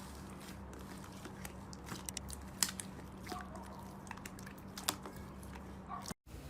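Slime being handled and pressed, with faint sticky clicks and crackles and a few sharper pops, over a steady low hum. The sound cuts out briefly near the end.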